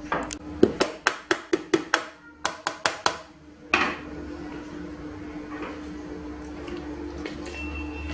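Kitchen containers knocking: about a dozen quick, sharp knocks over the first three seconds as flour is moved from a plastic tub into a mixing bowl, then one heavier knock. After that only a steady low hum.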